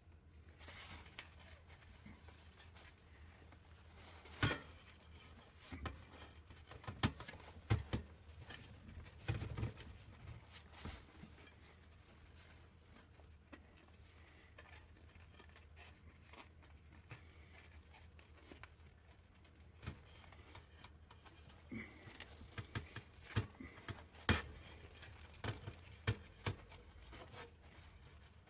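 Scattered clicks, knocks and rubbing from hands and tools working on a wheelchair wheel and its tyre, in sped-up playback. The knocks come in two busy spells with a quieter stretch between.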